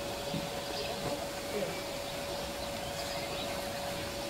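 Outdoor ambience: a steady hiss with a constant faint hum, and faint distant voices now and then.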